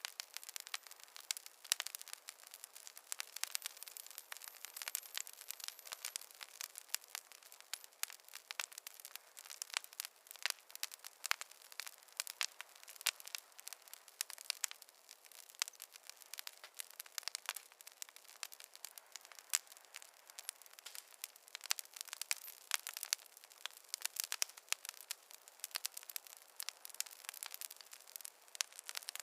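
Campfire crackling: a dense, irregular stream of sharp snaps and pops over a faint hiss.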